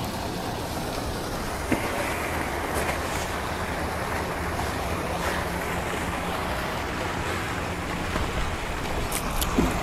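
Steady rushing noise of wind on the microphone, with a faint knock about two seconds in and a couple of clicks near the end.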